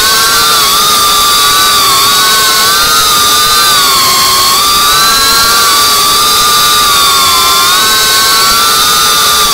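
Brushless motors and propellers of a GEPRC CineLog35 3.5-inch cinewhoop FPV drone whining in flight: a loud, steady buzz of several close tones that rise and dip together as the throttle changes.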